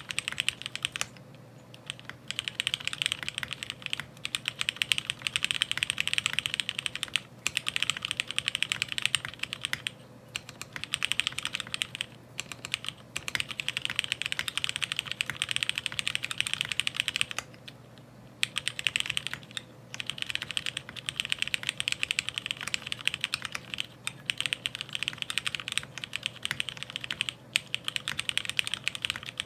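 Fast typing on a 60% mechanical keyboard with a ceramic housing: rapid key clacks in runs of a few seconds, broken by brief pauses.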